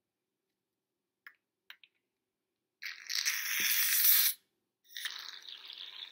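Aerosol shaving-cream can hissing as foam is pressed out of the nozzle: a few faint clicks, then a loud spurt of about a second and a half, a short pause, and a second, weaker spurt that is still going at the end.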